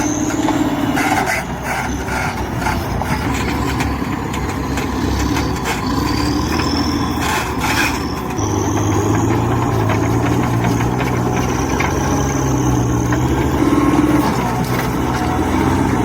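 Diesel engines of a tractor and a mud-stuck JCB running under load as the tractor tries to pull the machine out. The engine note steps up about eight seconds in, a high whine rises and falls over it, and a few knocks come early and about seven seconds in.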